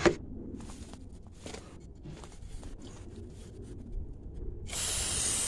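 Faint handling noises with a few light clicks, then near the end an aerosol can of parts cleaner starts spraying in a steady, loud hiss.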